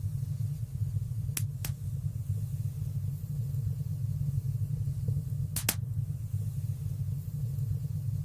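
Fire burning in a fireplace: a steady low rumble with a few sharp crackles, a close pair about a second and a half in and another pair a little after five seconds in.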